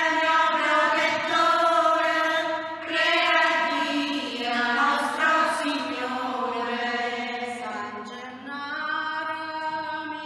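Choir chanting unaccompanied, in long held notes that move to a new pitch every few seconds.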